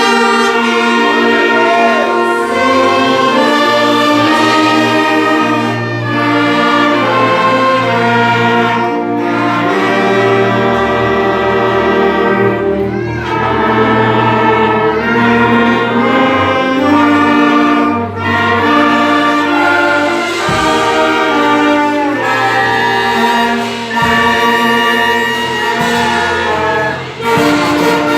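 An orchestra with a strong brass section playing a slow piece in full, held chords.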